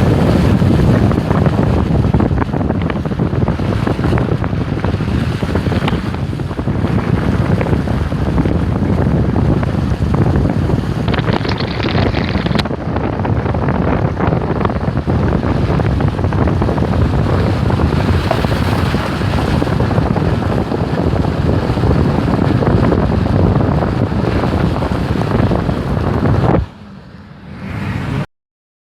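Wind buffeting the microphone: a loud, steady rushing with a heavy low rumble. It drops away suddenly near the end and then cuts off.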